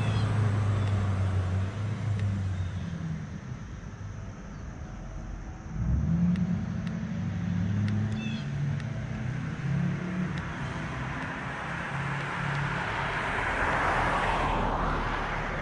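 Road traffic: a low engine hum, then a car passing on the road, swelling and fading near the end.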